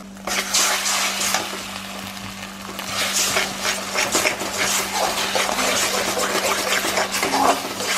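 Beaten eggs sizzling in hot oil in a metal kadai while a metal spatula scrapes and stirs them, breaking them into scrambled egg. The scraping strokes come faster from about three seconds in.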